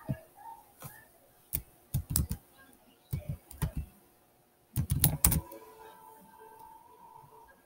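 Computer keyboard being typed on: three short bursts of key clicks about a second apart, the last burst the loudest.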